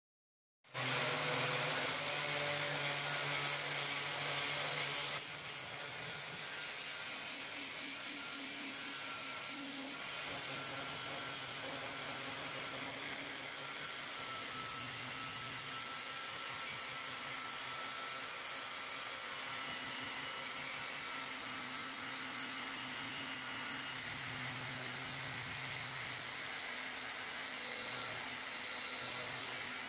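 Angle grinder with an abrasive disc grinding the steel handle of a pair of pruning shears, a steady whine over the scrape of the disc on the metal. It starts abruptly just under a second in and gets a little quieter at about five seconds.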